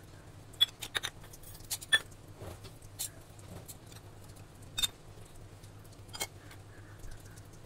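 Small stainless steel cups clinking and tapping against a steel mixing bowl and the countertop as they are picked up, poured and set down: several sharp clinks, the loudest in the first two seconds and once just before five seconds.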